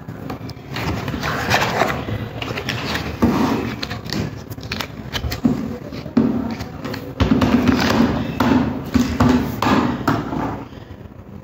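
Plastic bags crinkling and rustling around ink bottles as they are handled, with irregular knocks and scrapes against the cardboard box.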